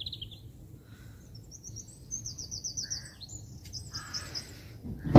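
A small songbird singing several rapid, high trills of repeated notes, over a steady low background rumble. A loud bump comes right at the end.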